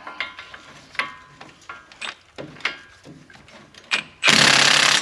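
Socket tools clicking and tapping on the front hub bolts. About four seconds in, a power tool runs loudly in a burst of under a second to spin out a hub bolt.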